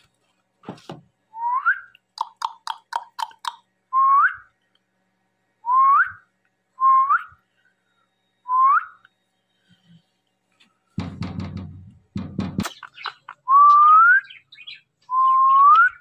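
Indian ringneck parakeet whistling a short rising note over and over, about seven times, with a quick run of chirps near the start. Two brief rustling knocks come about two-thirds of the way through.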